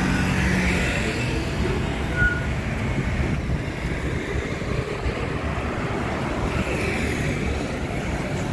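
City street traffic: motor scooters and cars passing, a steady mix of small engines and tyre noise that swells as vehicles go by. A brief high beep sounds about two seconds in.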